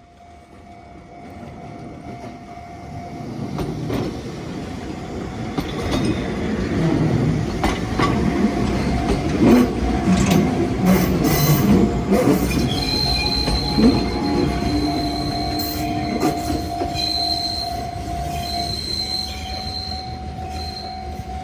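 An Enoshima Electric Railway (Enoden) electric train passing over a level crossing. It grows louder over the first several seconds, with wheels knocking over rail joints in the middle. A high, steady wheel squeal comes in about halfway, and the train fades somewhat near the end. A steady tone from the crossing alarm sounds throughout.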